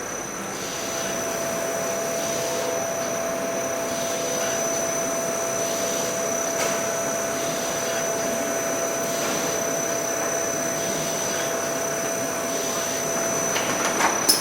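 Pizza cartoner packaging machine running, a steady motor and air noise with a high whine and a mid-pitched hum that comes in about a second in, its cycle repeating every couple of seconds. Sharp mechanical clicks and clatter come in near the end.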